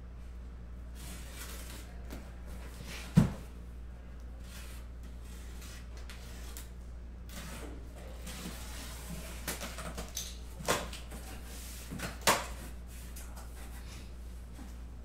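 Cardboard boxes being handled and shifted, with a few sharp knocks and thumps. The loudest is about three seconds in, two more come near the end, and there are softer rustles in between, over a steady low hum.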